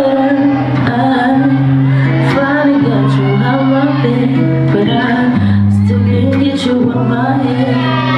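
Dance music played loud, with a vocal line over deep bass notes that are each held for a second or more.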